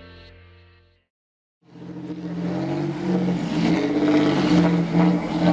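Guitar music fades out in the first second. After a short gap, a large coach bus's engine comes in, running and revving as the bus drives slowly over a rough dirt road, growing louder.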